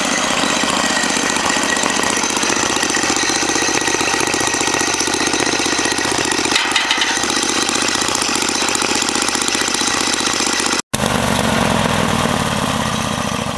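Portable sawmill running with its engine going steadily. The sound breaks off for an instant about eleven seconds in and picks up again with a deeper tone.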